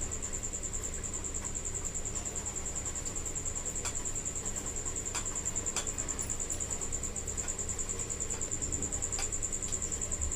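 A continuous high-pitched trill pulsing rapidly and evenly, like an insect's, with a few faint clicks scattered through it.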